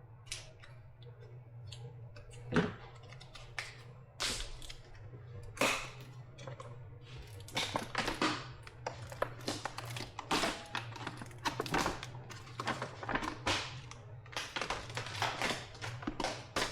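Irregular crackles and clicks of tape and plastic shrink wrap being pulled and cut away from a lithium-ion battery pack during disassembly, sparse at first and getting busier about halfway through, over a steady low hum.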